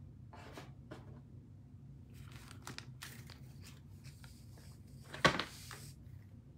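Faint off-camera handling noises, light rustling and tapping, with one sharp click or knock about five seconds in.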